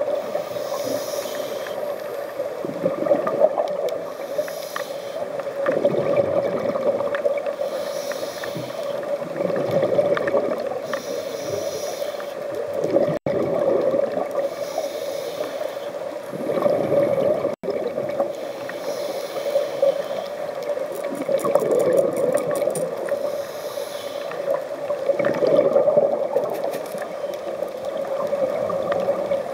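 Scuba diver breathing through a regulator underwater: a hiss on each inhale and a burst of bubbling exhaust every few seconds, over a steady hum.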